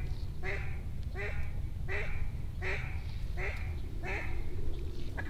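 A series of about seven drawn-out hen-mallard quacks, evenly spaced at roughly one every 0.7 seconds, each dropping in pitch at its end, over a steady low rumble.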